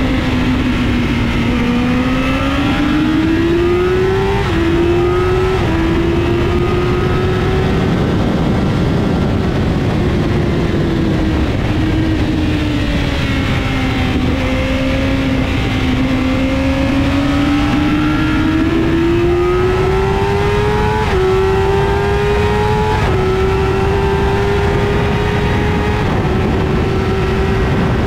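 Vehicle engine running hard, its pitch rising and falling with speed and dropping suddenly a few times as it shifts up a gear, over a heavy low rumble.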